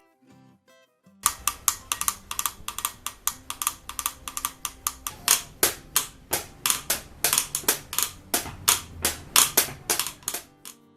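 Hand-drum washboard played in a fast, dense run of sharp taps and clicks with a few louder accents, starting about a second in and stopping shortly before the end.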